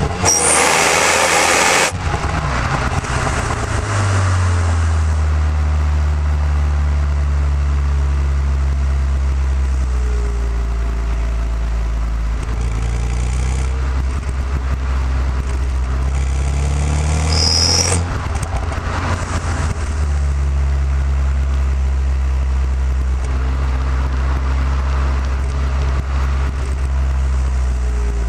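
Renault Mégane R26's turbocharged 2.0-litre four-cylinder engine running through its stock exhaust, holding a steady low drone for long stretches. Two short, louder and noisier surges come near the start and about two-thirds of the way through.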